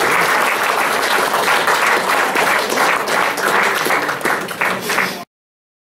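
Audience applauding: a dense patter of many hands clapping that thins into separate claps, then cuts off suddenly about five seconds in.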